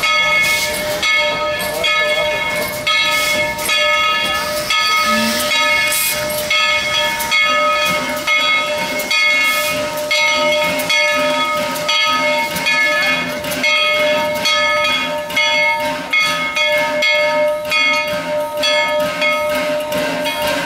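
USATC S118 class 2-8-2 steam locomotive standing at the platform: steam hissing, with a steady whine and a run of uneven chuffs.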